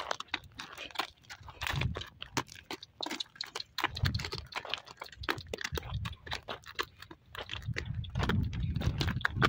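A loaded donkey walking, its hooves clopping and crunching on dry, stony ground in an uneven run of sharp knocks. Low rumbles come and go underneath, loudest near the end.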